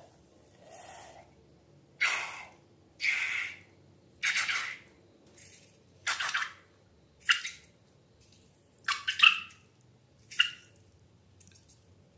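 Wet slime being squeezed and handled: a string of short squelching, dripping sounds, roughly one a second, the later ones sharper.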